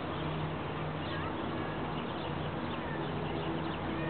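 Small birds chirping in short calls over a steady low drone.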